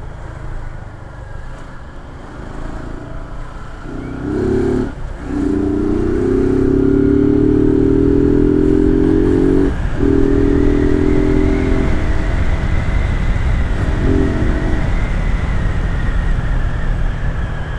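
Small single-cylinder commuter motorcycle engine, quiet at low revs for the first few seconds, then accelerating hard through the gears: its pitch climbs in each gear with short breaks at the shifts about five and ten seconds in. Wind rush and road rumble on the bike-mounted microphone run underneath.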